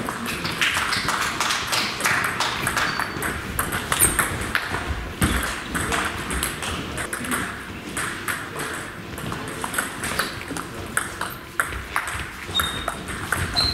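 Table tennis ball clicking sharply, again and again, off the bats and the table during rallies.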